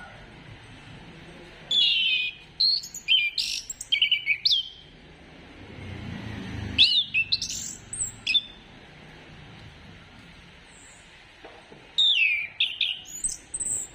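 Orange-headed thrush singing: three bursts of quick, high whistled phrases full of rising and falling slurs, with short pauses between them.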